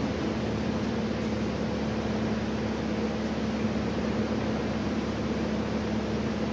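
Steady mechanical hum with an even hiss that does not change.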